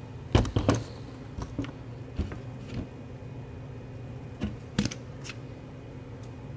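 A few short clicks and light knocks from a thin plastic deli container being handled on a small digital scale and lifted off it, the loudest about half a second in; a low steady hum runs underneath.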